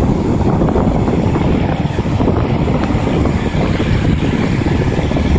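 Outdoor unit of a 1986 Trane Weathertron 1.5-ton heat pump running steadily in heating mode: fan and compressor noise, with the fan's discharge air buffeting the microphone.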